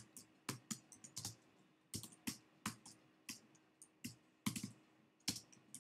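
Computer keyboard typing a terminal command: separate, irregularly spaced key clicks, about three a second, with short pauses between groups.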